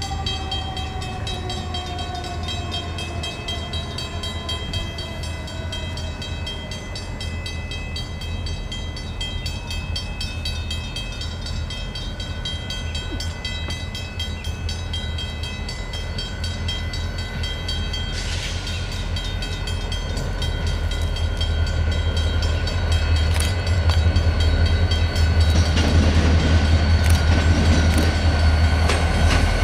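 Diesel locomotive approaching, an EMD GP40-2's turbocharged 16-cylinder 645 engine: a deep low rumble that grows steadily louder as it nears, swelling in the last few seconds. Steady high ringing tones from the level-crossing signal carry on over it throughout.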